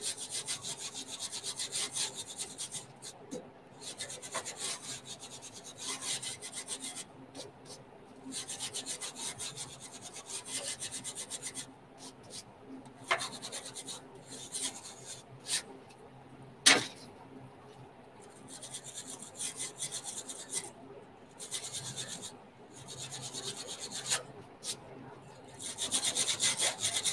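A small hand tool scraping paint along the seam of a painted metal panel on an aircraft engine starter cart, in quick strokes that come in spells of one to three seconds with short pauses. A few sharp clicks stand out, the loudest about two-thirds of the way through.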